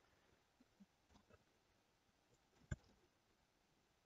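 Near silence, with a single computer mouse click about two and a half seconds in.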